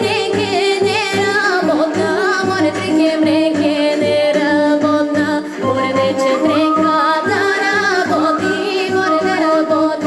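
A woman singing a Bulgarian folk song into a microphone, her melody ornamented and wavering, over instrumental accompaniment with held drone-like notes and a steady bass beat.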